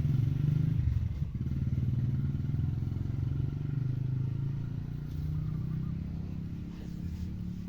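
An engine running steadily with a low, rapid pulsing hum that slowly gets quieter.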